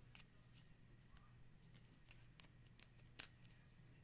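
Near silence with a few faint clicks of plastic action-figure wing parts being handled, the clearest a little after three seconds in, over a faint steady hum.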